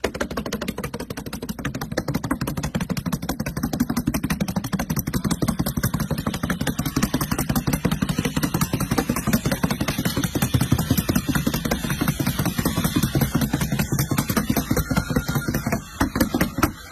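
Hammer tacker being swung to staple synthetic roofing underlayment onto a plywood roof deck: a rapid, steady run of sharp strikes, several a second, with a short break near the end.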